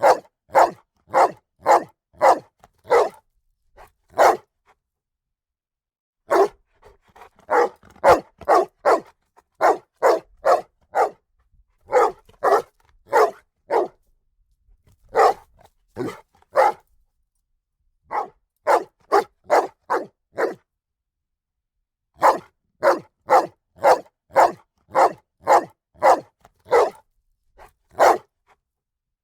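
A dog barking repeatedly in quick runs of short barks, about two to three a second, with pauses of a second or two between the runs.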